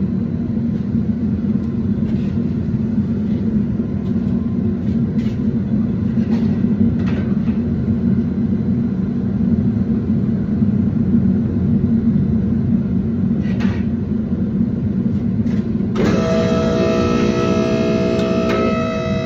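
Steady low rumbling roar of forging-shop equipment with a few faint clicks; about three quarters of the way through, guitar music comes in over it.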